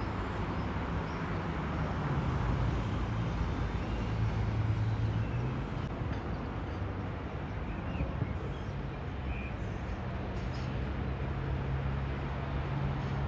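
A low, steady engine drone whose pitch shifts a little higher about halfway through, over a continuous rush of outdoor background noise.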